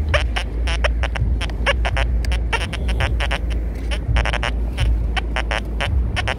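XP Deus II metal detector sounding short, irregular chirps, several a second, as its coil is swept over wet beach sand, over a steady low rumble.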